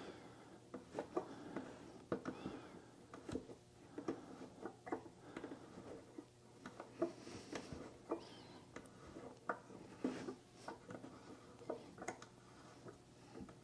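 Hand tap in a T-handle tap wrench slowly cutting 1/4-20 threads into a hardwood maple block, giving faint, irregular creaks and clicks as the tap is turned and backed off.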